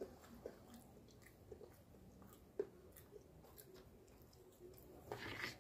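Faint chewing of food, with scattered small clicks of a spoon against a plastic plate, the sharpest about halfway through.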